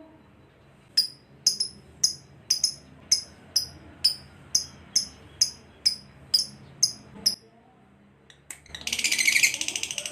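Lovebird calling: about fifteen short, sharp chirps, each falling in pitch, about two a second, then after a brief pause a loud, rapid, buzzy trill starting near the end.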